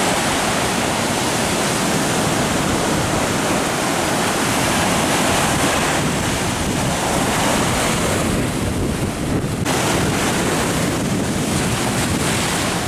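Sea surf breaking and washing up over sand and rocks, a steady loud rush of water, with wind buffeting the microphone.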